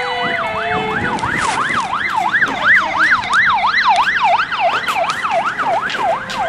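Electronic ambulance-style siren: a fast, wavering wail that rises and falls about two and a half times a second.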